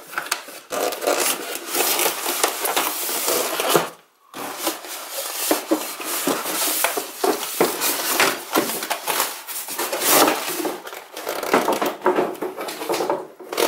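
Cardboard box and polystyrene foam packaging scraping and rustling, with plastic wrap crinkling, as the monitor's box is opened and the foam tray pulled out. The handling noise breaks off briefly about four seconds in.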